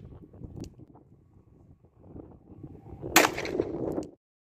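A single shot from a .38 Rohm revolver about three seconds in, trailing off over most of a second, with wind rumbling on the microphone before it. The sound cuts off abruptly shortly after the shot.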